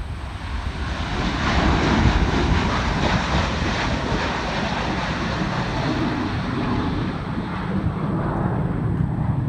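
Airbus A350-1000's twin jet engines at takeoff thrust as the airliner lifts off and climbs away: a rushing jet roar that swells about a second in and stays loud, over a deep low rumble.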